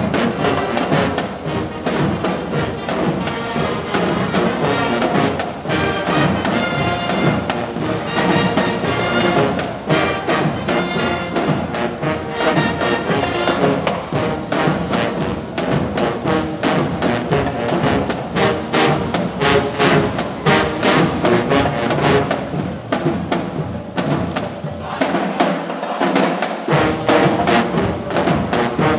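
Marching band playing: a full brass section over a drumline, loud and rhythmic, with the low brass and bass drums dropping out briefly near the end.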